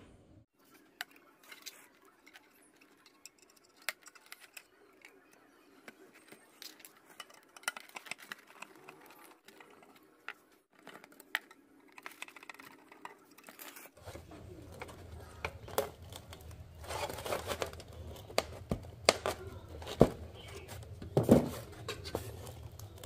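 Hands working on a cassette player: scattered small clicks, taps and rustles of parts and tools being handled. About two-thirds of the way through, a low hum joins and the knocks become louder and more frequent.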